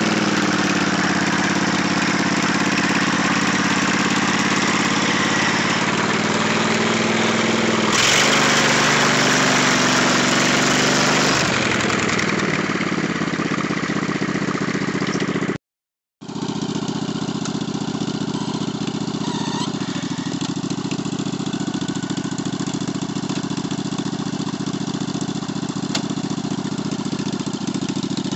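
Riding lawn mower engine running hard, its pitch rising and falling as the mower churns through flood water and mud, with a hiss of splashing water. After a brief dropout about halfway through, the engine runs at a steadier speed.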